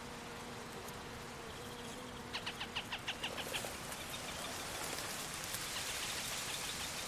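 Adult Montagu's harrier giving its rapid chattering alarm call: a quick run of about ten sharp notes a couple of seconds in, then a fainter, faster series of notes over a rising rushing noise. It is a sign of alarm at an intruder near the nest. A steady low hum runs under the first half.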